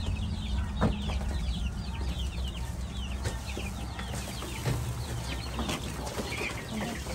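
A brood of young chicks and ducklings peeping together: a steady chorus of short, falling chirps, several a second, over a low rumble.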